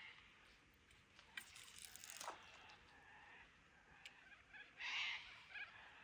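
Near silence: faint outdoor quiet with a few soft ticks and one brief, faint sound about five seconds in.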